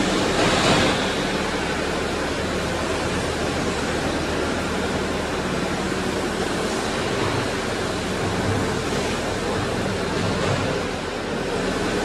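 Case TV450B compact track loader's diesel engine running steadily under a broad rushing noise as the machine turns in place on its rubber tracks.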